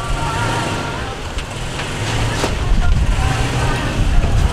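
Off-road truck's engine running steadily at low speed as it drives along a rough dirt trail, with a few sharp knocks and rattles from the truck jolting over the ground.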